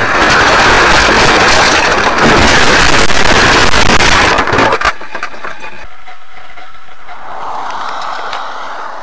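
A vehicle crashing off the road through dry brush and scrub: loud crunching, rattling and scraping noise full of knocks, which drops off suddenly about five seconds in to a quieter steady hiss.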